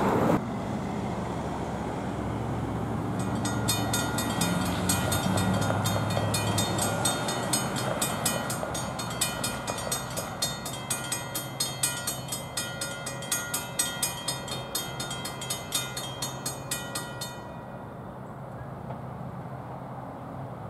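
Railroad grade-crossing warning bell ringing in rapid, regular strokes as the crossing gates come down. It stops about three seconds before the end, once the gates are down, leaving a low rumble of road traffic.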